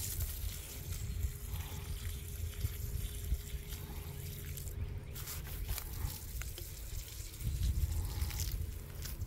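Water trickling from a plastic watering can's spout onto straw mulch, with a few light taps and a low rumble underneath.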